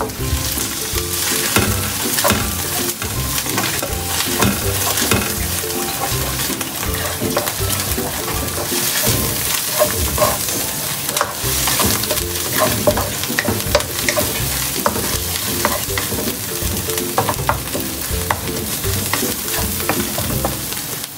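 Bagoong (fermented shrimp paste) with garlic and onion sizzling in hot oil in a pan, stirred with a wooden spatula that scrapes and knocks against the pan again and again.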